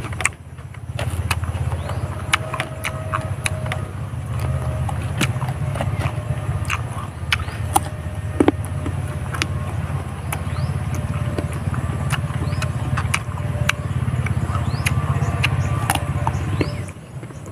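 Close-up chewing and crunching of raw fruit and leaves, with many sharp irregular clicks, over a steady low rumble that drops away near the end.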